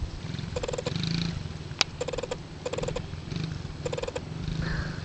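Small child's dirt bike engine running with a low putter, with short bursts of a higher rattling sound recurring every second or so. A single sharp click about two seconds in.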